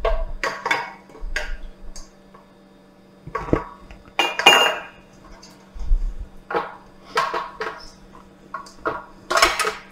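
Spatula scraping and knocking around a stainless steel bowl while a thick, softened cream cheese mixture is stirred, in irregular strokes.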